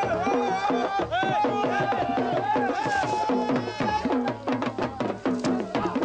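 Music: hand drums beating a fast, steady rhythm under a wavering, ornamented melody.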